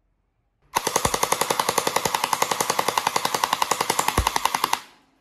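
Electric gel blaster with a drum magazine firing a full-auto burst of about four seconds, at a rapid even rate of about eleven shots a second, then stopping abruptly.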